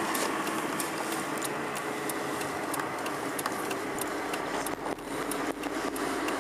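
Steady wind and road noise of a moving car, heard at an open side window, with a few faint clicks scattered through it.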